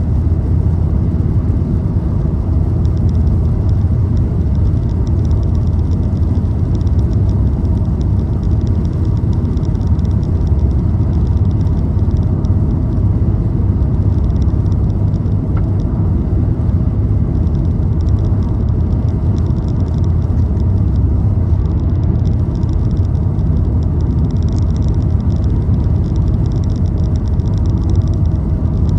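Steady low road and engine rumble of a car cruising at speed, heard from inside the cabin.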